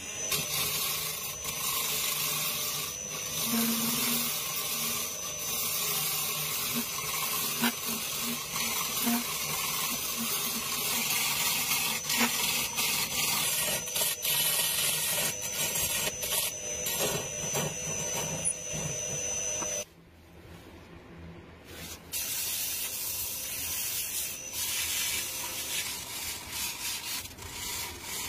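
Wood lathe spinning a turned wooden vessel while a hollowing tool scrapes its inside: a steady scraping hiss with a thin high tone. It drops away about 20 seconds in and returns about two seconds later. Near the end, sandpaper rubs against the spinning wood.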